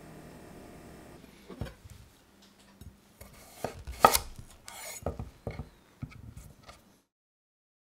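Chef's knife cutting new potatoes in half on a wooden cutting board: a string of sharp knocks as the blade goes through and strikes the board, the loudest about four seconds in.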